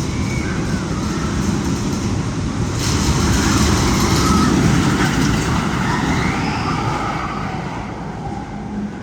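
Loud, steady rumble in the Magnum XL 200 roller coaster's tunnel, swelling into a fuller roar about three seconds in, with faint wavering high tones gliding over it.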